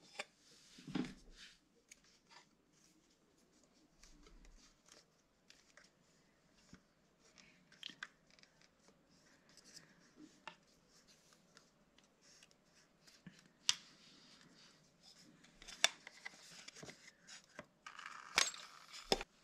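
Scattered small metal clicks and plastic rustles from a wrench, a clear bleed tube and a plastic catch cup being taken off a motorcycle clutch slave cylinder's bleed nipple. There are a few sharper clicks in the last few seconds.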